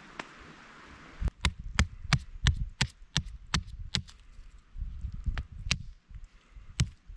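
Roselli axe, held choked up near the head, chopping and shaving a point onto a wooden stake. About a dozen sharp, crisp strokes at roughly three a second begin about a second in, with one last stroke near the end.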